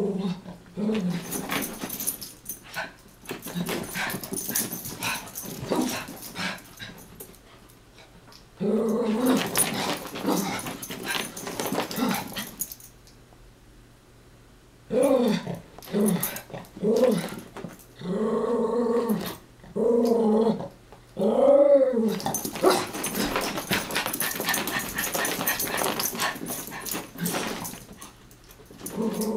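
Two Chihuahuas play-fighting, growling and yipping, with scuffling noise as they chase and wrestle. About halfway through comes a run of short growls that rise and fall in pitch.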